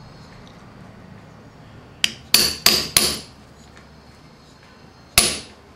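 Hammer striking a leather hand punch to punch the end hole of a belt-loop slot through a leather holster blank on a steel block: four quick blows about two seconds in, then one more near the end.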